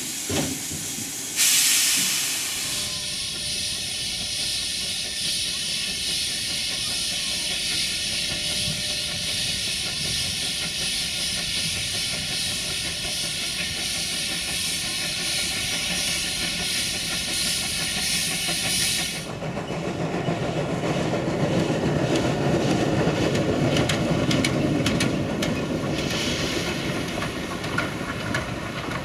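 1903 Borsig steam locomotive letting out a loud, steady hiss of steam that starts suddenly about a second and a half in. Near two-thirds of the way through it is heard running along the track, with a rapid run of strokes over continuing steam hiss.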